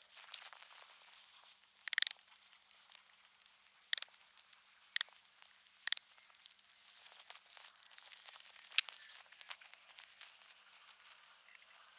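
Wood fires burning in small twig stoves: a steady faint crackling, with four sharp pops about two, four, five and six seconds in.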